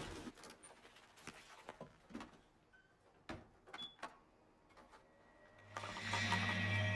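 Soft scattered clicks and knocks of a photocopier being worked, its lid handled. Near the end a low, eerie hum with a high ringing tone swells in and holds.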